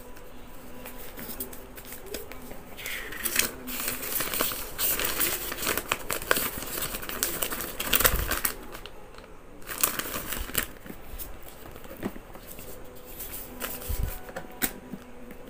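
Paper sheets and a folded instruction leaflet rustling and crinkling as they are unfolded and leafed through by hand. The rustling is densest in the middle, with a couple of soft thumps from handling.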